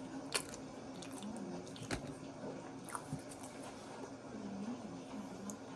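Mouth-noise chewing of a soft waffle close to the microphone, with a few sharp smacking clicks spread through the chewing.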